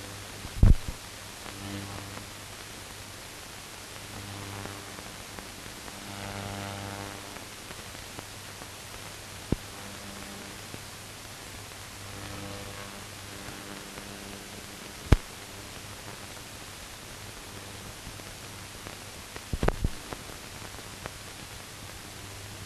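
Empty soundtrack of a silent film transfer: steady hiss and low mains hum, with a few sharp clicks and pops, the loudest near the start and near the end. The hum swells faintly twice.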